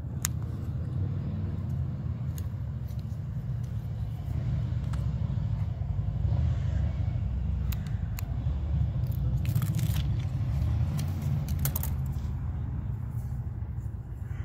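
A steady low rumble, with scattered faint clicks and a few short scraping sounds.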